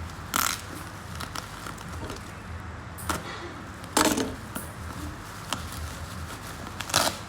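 Packaging being handled while a parcel is unboxed: three short rustling noises, the loudest in the middle, over a low steady hum.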